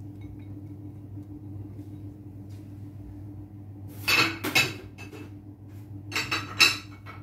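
Glass kitchen bowls clinking and knocking on a countertop in two short clusters of sharp clicks, about four seconds in and again about six seconds in, over a steady low hum.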